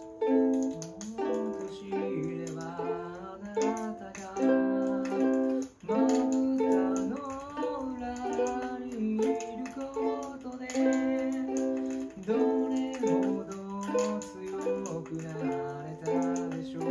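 Ukulele strummed in a steady run of chords, with a man's voice singing along in places.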